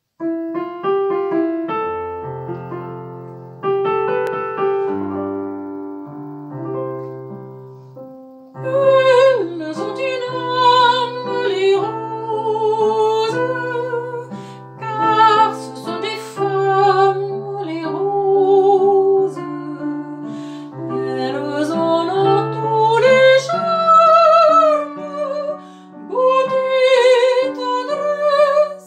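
Piano playing an introduction alone, then a woman singing a slow song with vibrato over the piano accompaniment, starting about eight seconds in.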